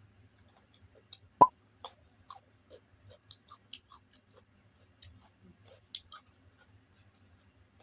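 A person eating spicy squid up close: irregular wet chewing and mouth smacks, with one sharp louder click about a second and a half in.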